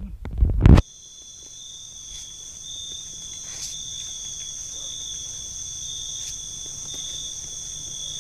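Night insects, crickets or similar, trilling steadily in several high, unbroken tones. It opens with a short burst of loud low rumbling noise that cuts off abruptly under a second in.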